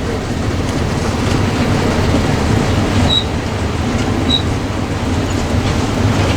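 A vehicle's engine and tyre noise, heard from inside the cabin, running steadily while driving slowly in first gear. Two short high chirps come about three and four seconds in.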